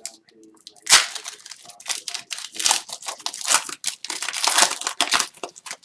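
Foil wrapper of a hockey card pack being torn open and crinkled by hand: a run of short, irregular tearing and crinkling rustles, the loudest about a second in.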